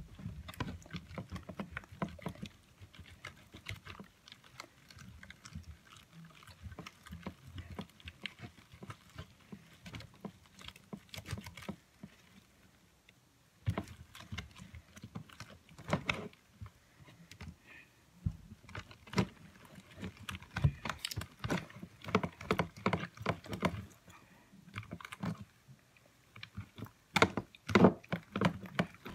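Freshly activated slime being squeezed and kneaded by hand in a plastic container, giving a run of irregular wet clicks and squelches, with a short lull about halfway.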